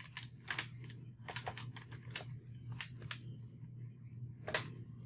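Typing on a computer keyboard: a run of irregular key clicks, with one louder keystroke about four and a half seconds in, over a faint low steady hum.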